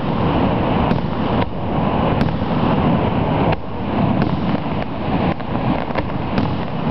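Fireworks exploding in several sharp bangs at irregular spacing over the steady roar of the Niagara Falls waterfall.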